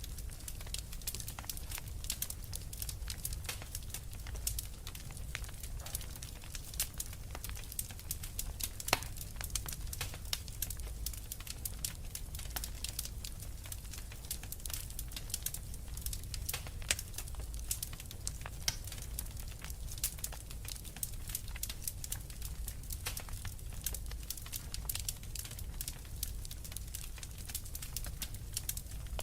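Wood fire crackling, with many irregular sharp pops and snaps over a steady low rumble.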